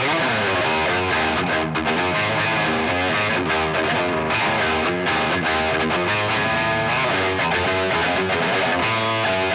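Electric guitar with distortion, played through an amplifier and recorded on a Shure dynamic microphone (SM57 / Unidyne III) for a tone test: a continuous run of notes at an even loudness, with a bend in pitch right at the start.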